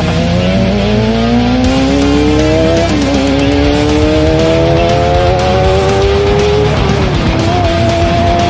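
Kawasaki ZX-25R's inline-four engine through an aftermarket 3 Tech Racing Evolution exhaust, accelerating hard: the pitch climbs, drops at an upshift about three seconds in, climbs again, and drops at a second upshift near seven seconds, then holds nearly steady.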